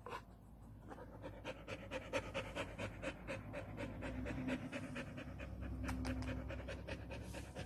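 Dog panting with its mouth open: a fast, even run of breaths, several a second, growing a little louder through the middle.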